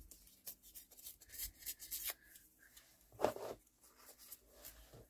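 Faint rustling and rubbing of paper pieces being handled, with a few light taps and one louder rubbing scrape about three seconds in.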